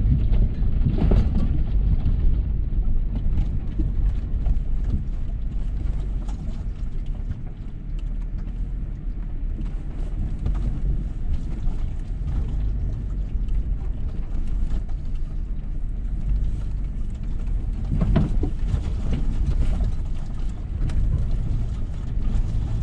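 Vehicle driving slowly along a dirt trail, heard from inside the cab: a steady low engine and road rumble with frequent small knocks and rattles.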